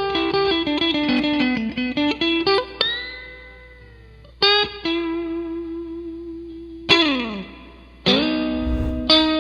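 Overdriven electric guitar playing a lead phrase through a Sweet Leo overdrive pedal. It opens with a fast falling run of single notes, then a bent note with vibrato that fades, a held vibrato note, a long slide down, and two held chords near the end.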